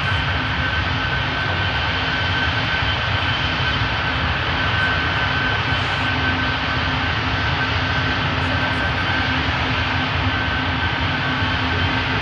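Antonov An-124 cargo jet's turbofan engines running steadily at low power as the aircraft rolls slowly down the runway after landing: a constant rumble with a steady high whine over it.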